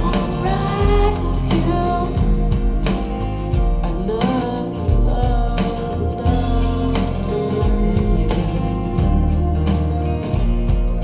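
Rock song played back through Klipsch RP-600M bookshelf speakers: guitars, bass and a steady drum beat, with a singing voice coming in and out.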